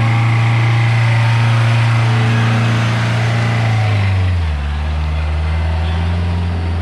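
Engine of an off-road 4x4 running under load as it climbs, a steady low drone whose pitch steps down a little about four seconds in.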